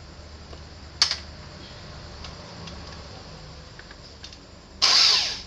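Cordless drill-driver run in one short burst near the end, driving a screw to tighten the headlamp assembly. A sharp click about a second in and a few light ticks come before it.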